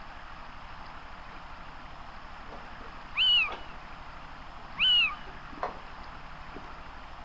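Two short, high animal calls about a second and a half apart, each rising then falling in pitch, over a steady background hiss.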